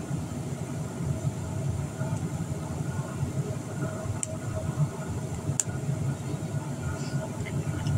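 Plastic toy parts clicking sharply twice, about four and five and a half seconds in, over a steady low rumble.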